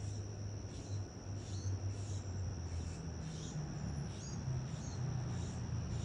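Young Carolina wrens giving short, high call notes about twice a second, over a steady high-pitched insect drone and a low hum.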